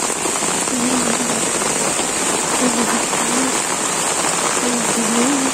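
Torrential monsoon rain pouring steadily onto a wet concrete rooftop and the surrounding trees, an even, unbroken hiss.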